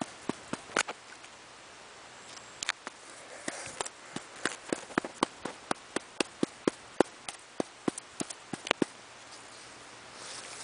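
A stick beating a large, dry, ripe puffball mushroom: quick dry papery taps. There are a few in the first second, then a steady run of about four taps a second that stops a little before the end.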